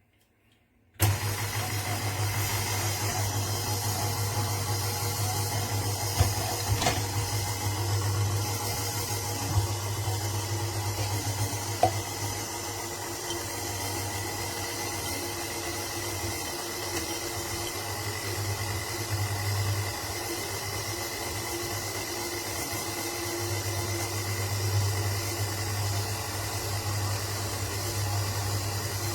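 KitchenAid stand mixer switched on about a second in, its motor running steadily with a low hum and a thin high whine while driving a slicer-shredder attachment. A few sharp knocks come through it early on the run.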